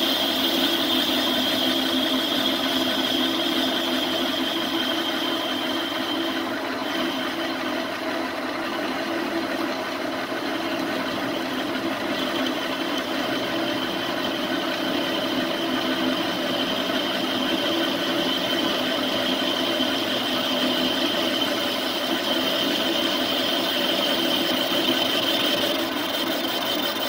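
Metal lathe running steadily while a boring bar cuts inside a spinning metal workpiece, with a high steady whine that fades out about six seconds in and comes back about halfway through.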